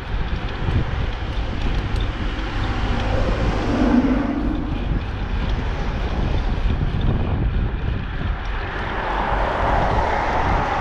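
Wind buffeting the microphone of a camera carried while cycling: a steady, loud rush of noise, heaviest in the low end.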